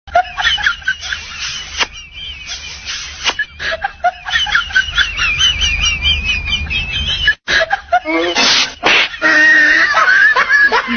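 Baby monkey giving rapid high-pitched squeaky chirps over a low hum, followed from about eight seconds in by a louder drawn-out crying wail.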